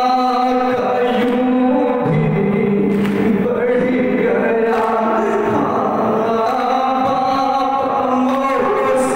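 A male noha reciter chanting a noha, the Urdu lament of Muharram mourning, on long, drawn-out held notes into a microphone.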